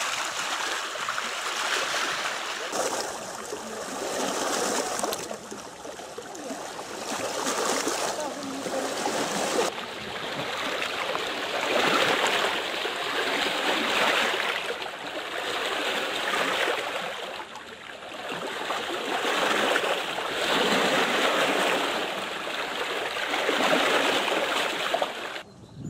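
Choppy reservoir waves washing and splashing against shoreline rocks, the rush swelling and easing every couple of seconds.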